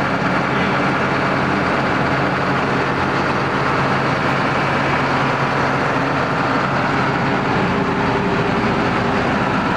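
John Deere 9600 combine harvester running steadily at work, its diesel engine and machinery holding an even, unchanging hum with several steady tones.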